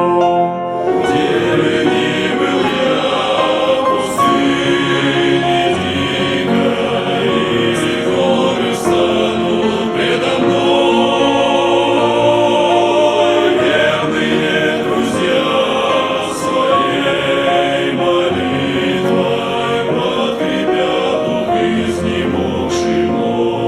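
Choir singing a Christian song with instrumental accompaniment.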